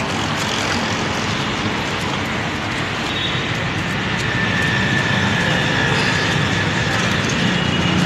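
Steady road traffic noise, swelling slightly about halfway through.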